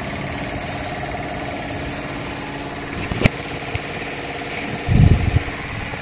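ELGI two-cylinder piston air compressor running steadily, drawing air through its freshly cleaned and refitted intake air filter. A sharp click comes a little past three seconds and a short low thump near five seconds.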